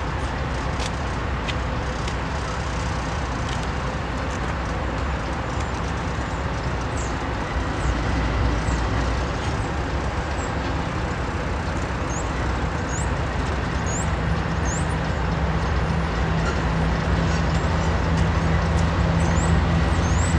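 CSX GE diesel locomotive, an AC4400 rebuild, running as it slowly pulls a freight train past. Its steady engine drone grows louder and deeper as it draws near, strongest from about two-thirds of the way in.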